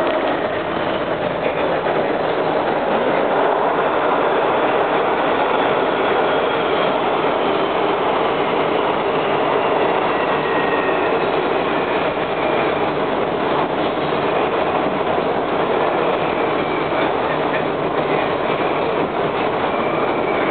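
Steady ride noise inside a Breda 4000-series Metrorail car running on its line: wheels on rail and running gear, with faint whining tones that slide in pitch.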